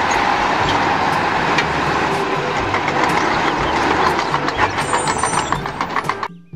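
Eight-wheel Tatra dump truck driving along a dirt track, its diesel engine running steadily under a rumble of tyres. Short knocks and rattles run through the middle, and the sound fades out near the end.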